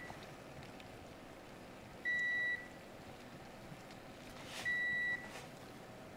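Two identical high electronic beeps, each about half a second long and about two and a half seconds apart, from a household appliance such as the wall oven or the cordless phone, against a quiet room.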